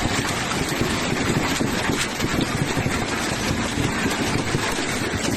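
Hailstones pelting hard surfaces in a heavy storm: a dense, steady roar of countless small impacts. The sound cuts off abruptly at the end.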